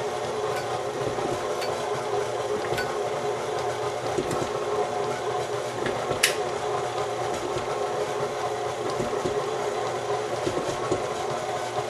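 KitchenAid Classic stand mixer running steadily, its flat beater shredding cooked chicken in the stainless steel bowl. A single sharp click about six seconds in.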